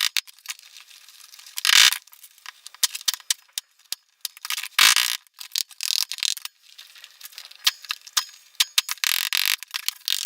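Handling a beekeeper smoker: many small clicks and metal clinks, with a few short bursts of rushing noise, each about half a second long.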